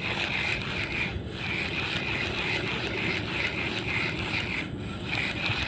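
Spinning fishing reel being cranked, a steady rasping whir of its gears as a hooked fish is reeled in, with two brief dropouts.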